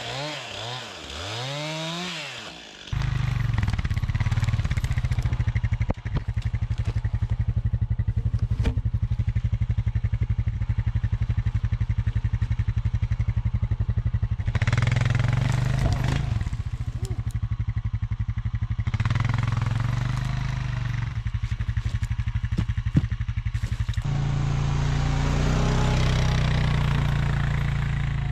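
A chainsaw's revs sweeping up and down for the first few seconds, then a Honda Rancher ATV's single-cylinder engine running steadily, speeding up about four seconds before the end as it starts to drag a log through the snow.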